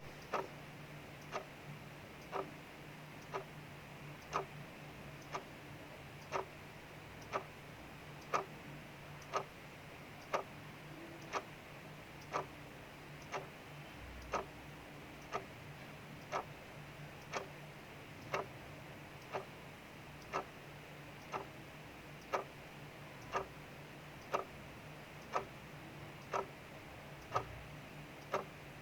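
Clock ticking steadily, about one tick a second, over a constant soft hiss of rain outside and a faint low hum.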